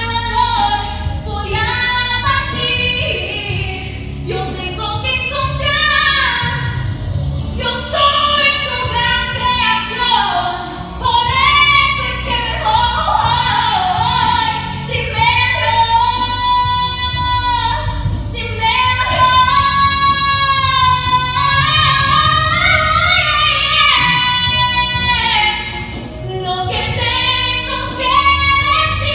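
A woman singing solo into a handheld microphone, with long held notes in the middle that waver in a wide vibrato.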